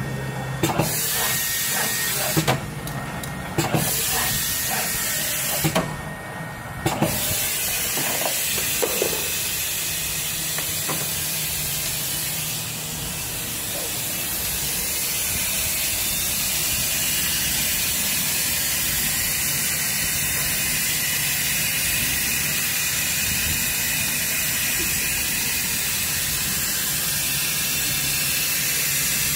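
Automatic screw driving machine at work, with sharp knocks and clicks of its mechanism roughly once a second for the first several seconds. After that a steady hiss continues.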